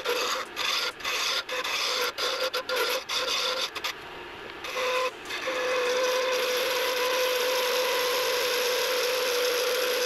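Wood lathe turning purpleheart pen blanks on a pen mandrel, a turning tool cutting the spinning wood. The cuts come in short broken passes for about the first four seconds, then turn into one long continuous cut with a steady hum through the second half.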